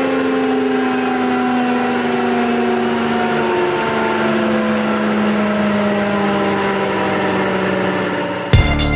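ŻEFAM DCHJA-63 wood jointer's motor and cutterhead whirring, the pitch falling slowly and steadily as the machine winds down. Music cuts in just before the end.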